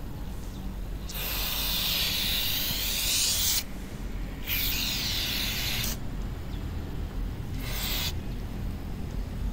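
Aerosol silicone spray hissing in three bursts: a long one of about two and a half seconds, a shorter one, then a brief puff near the end. It is being sprayed onto a hardened rubber window-channel seal to lubricate a window that is heavy to wind up.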